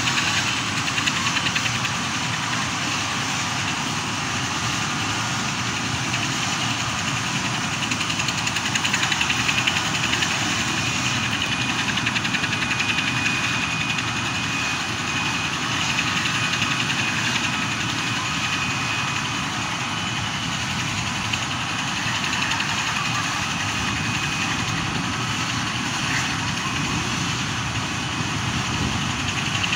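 Air ambulance helicopter running on the ground with its rotor turning: a steady, loud turbine rush with a thin high whine held throughout.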